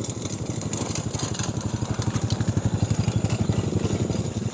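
Small motorcycle engine running with a fast, even beat, growing louder.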